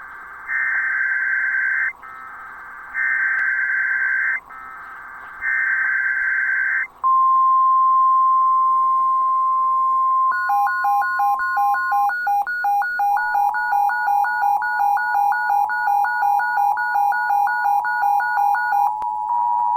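NOAA Weather Radio emergency alert test tones. First come three short buzzing bursts of SAME header data, then a steady single warning tone near 1 kHz (the 1050 Hz weather radio alert tone). After that, rapid two-pitch beeping at about four beeps a second runs over a steady tone until shortly before the end.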